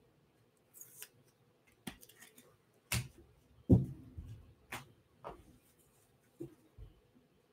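Trading cards in rigid clear plastic holders being picked up, shuffled and set down on a table, giving a scatter of light taps and clicks.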